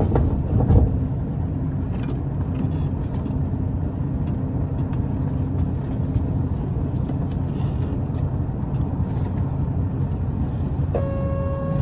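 Isuzu Erga city bus under way, heard from inside the cabin: a steady diesel engine and road rumble, with a steady hum from about two to six seconds in and a knock about a second in. Near the end an electronic chime sounds.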